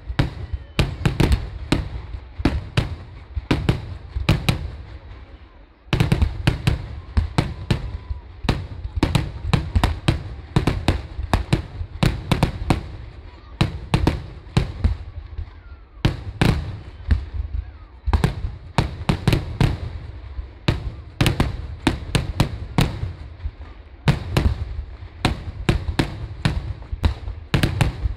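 Vedikkettu firecracker barrage: a rapid, continuous string of loud bangs, several a second, with short pauses about six and sixteen seconds in.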